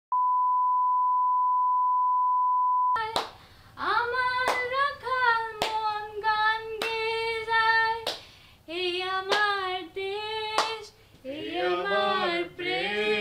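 Steady 1 kHz test-tone beep over television colour bars for about three seconds, cut off suddenly. Then a woman sings unaccompanied in long, wavering notes, with a few sharp clicks between phrases, and a lower voice joins near the end.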